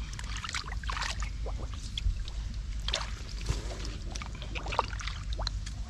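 Hands splashing and sloshing in shallow muddy water while groping for catfish, with irregular small splashes and drips.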